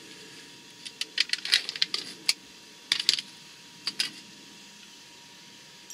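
Plastic clicks and crinkles of food packaging being handled: a cream cheese tub opened and its foil seal peeled. They come in short clusters from about a second in to about four seconds in.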